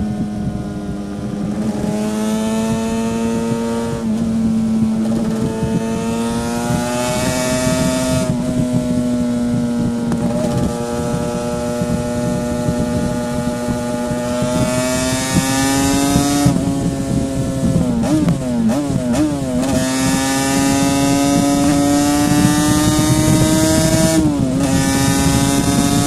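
A 1984 Yamaha RD500's 499 cc liquid-cooled V4 two-stroke engine running under load at highway speed, heard from the rider's seat. The engine pitch climbs slowly and dips briefly several times, then wavers unsteadily for about a second and a half a little past halfway.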